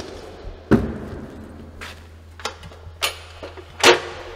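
A few separate sharp knocks and thumps of things being handled and set down, the loudest about a second in and near the end, over a low steady hum.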